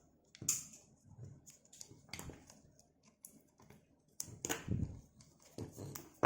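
Irregular small clicks, taps and rustles of hands handling wires and small parts, with a few louder knocks about half a second in and again past the four-second mark.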